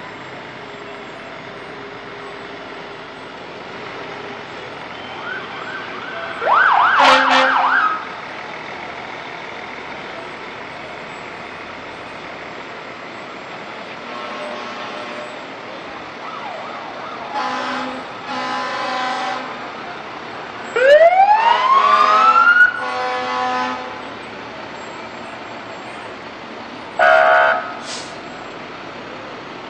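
Parading fire trucks sounding short horn blasts, several times, over a steady background of engines and street noise. About two-thirds of the way through, a siren gives a brief whoop that rises in pitch.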